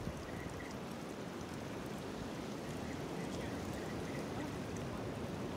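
Sea surf washing over and around shore rocks: a steady rushing water noise.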